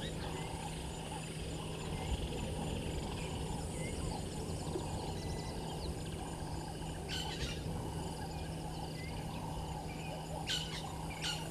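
Bush ambience: many small high chirps and calls over a steady low hum. Short, louder harsh calls come about seven seconds in and twice near the end.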